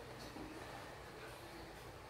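Quiet room tone: a faint, even hiss with no distinct sound in it.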